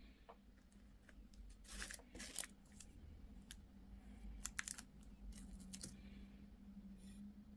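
Faint close-up mukbang handling and eating sounds: scattered sharp clicks and a few short, crisp crackles, the loudest about two seconds in and again around four and a half seconds, over a faint steady low hum.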